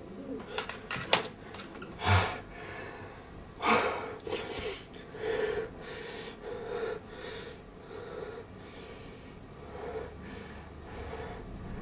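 A man breathing hard in uneven bursts of breath, with a few sharp clicks about a second in.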